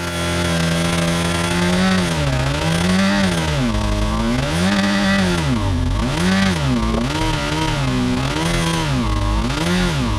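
Car engine running at high revs, its pitch first steady and then, from about two seconds in, surging up and down over and over, roughly once a second.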